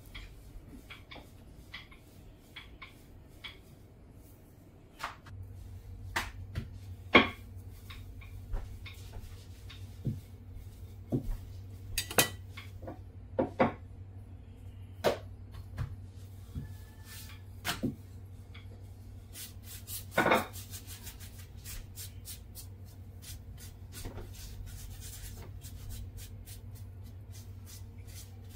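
Kitchen utensils and cookware knocking and clinking in scattered, irregular strikes while cooking goes on. A low steady hum comes in about five seconds in.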